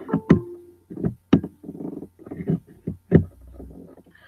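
Handling noise close to the microphone: about five sharp knocks and clicks at irregular spacing, with muffled rustling between them.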